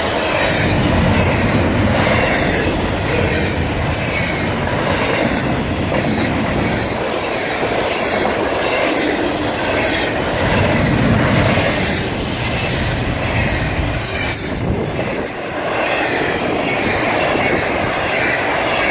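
Railcars of a slow diesel train rolling past close by, a steady clatter of steel wheels on the rails.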